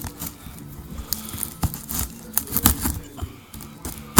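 Cardboard box being cut open and handled: irregular scrapes, small knocks and clicks of a blade and hands working on the cardboard and packing tape.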